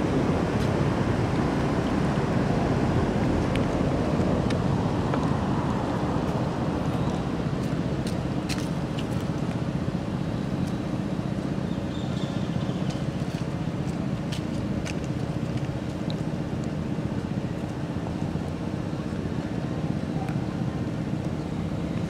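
Steady outdoor background rumble, like distant traffic or wind, with a few faint ticks scattered through it. No monkey cries stand out.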